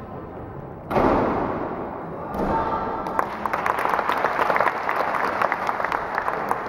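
Spectators applauding and cheering in a sports hall. The noise breaks out suddenly about a second in, eases, then swells again with quick, irregular clapping.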